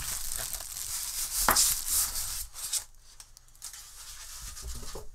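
Polystyrene foam packing and plastic wrap being handled and pulled out of a cardboard box: scraping, rubbing and rustling, louder in the first three seconds and quieter after.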